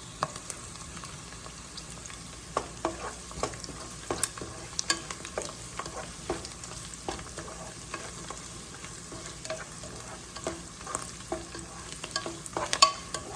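Onions and crushed garlic sizzling in oil in a pan while a utensil stirs them, with irregular scrapes and taps against the pan.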